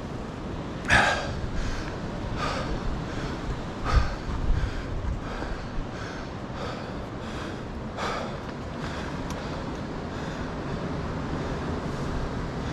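A mountain biker breathing hard, with a short audible breath about every one and a half seconds, over a steady low rumble. The two loudest breaths come about one second and four seconds in.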